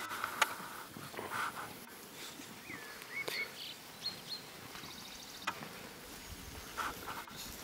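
Staffordshire bull terrier puppies playing in grass: rustling and scuffling, with a few brief high squeaks in the middle and a short buzz soon after.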